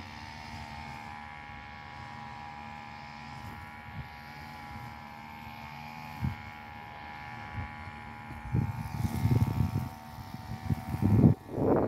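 A steady motor-like hum, an even drone with a fixed pitch. In the second half, loud low rumbling gusts come and go over it.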